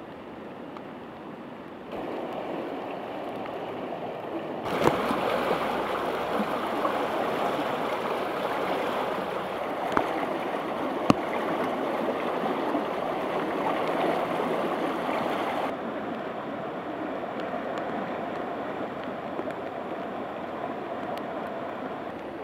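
Floodwater rushing in a rain-swollen creek, a steady rushing noise that steps louder about two and five seconds in and eases a little after about sixteen seconds, with a few sharp clicks.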